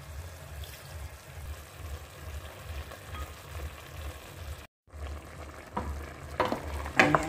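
Squid strips simmering and sizzling in coconut milk in a metal pot, over a low steady hum. The sound drops out briefly about two-thirds of the way in. Near the end come a few knocks and scrapes as the pot is stirred.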